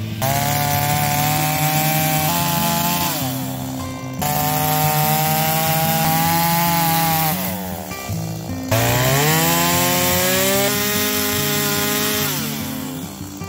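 Stihl MS170 two-stroke chainsaw at high revs, sawing through a standing tree trunk to make the felling back cut. It runs in three stretches, and the revs drop off at the end of each.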